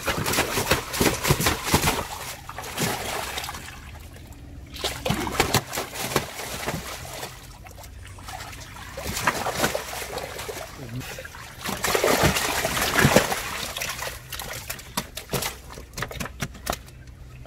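Water splashing and sloshing as large netted fish thrash in a shallow, water-filled tarp-lined boat hold, with sharp slaps. It comes in uneven bursts and is loudest about two-thirds of the way through.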